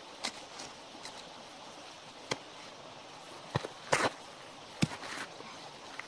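A few scattered sharp knocks and clicks over a faint steady background, the loudest a short cluster about four seconds in.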